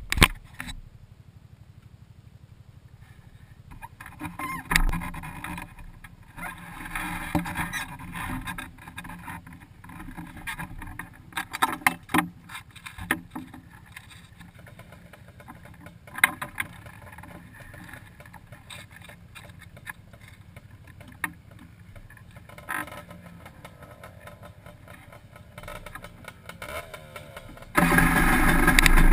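Scattered knocks and rustles of handling over a faint low hum, then about a second before the end a Honda FL400 Pilot sand rail's engine starts up and runs loudly and steadily.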